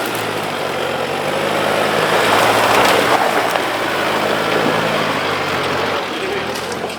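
A 4x4 ute's engine running under load as it drives along a rutted, leaning off-road track. Over the engine a rush of noise swells, loudest about three seconds in, then eases.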